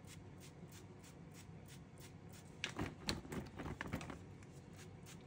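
A few quick spritzes of a Fry Light garlic oil pump spray over parboiled potato chunks in a plastic colander, with light knocks of the colander, bunched together from about two and a half to four seconds in.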